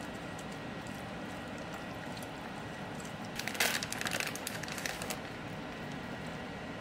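Plastic bag of shredded cheese crinkling as it is handled and tipped over a steel mixing bowl: a run of crackling from about three and a half to five seconds in, over a steady low hiss.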